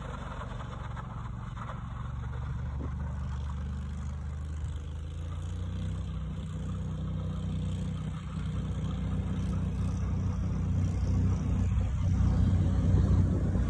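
A motor vehicle engine running steadily as a low, even hum that grows louder toward the end.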